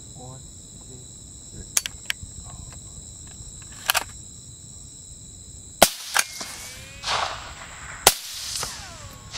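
Suppressed hunting rifles fired at feral hogs: two sharp shots about two seconds apart, the first the louder, after a few lighter clicks. A steady chorus of crickets runs underneath.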